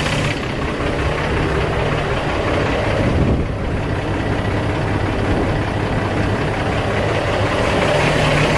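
Cummins ISX inline-six diesel in a semi truck idling steadily, run after an EGR cooler replacement and coolant refill to circulate the new coolant.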